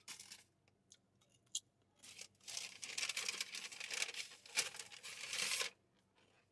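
Plastic packaging being handled: a few faint clicks, then about two seconds in a few seconds of rustling and crinkling that stops shortly before the end.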